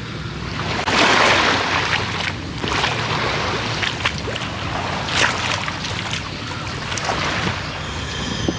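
Footsteps wading and scuffing along a shallow, stony creek bed: a steady noisy hiss with several louder, uneven splashes and scrapes.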